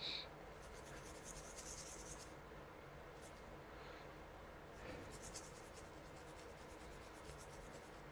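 Faint scratchy rustling in two stretches, the first lasting under two seconds and the second about three, with a brief high squeak at the very start.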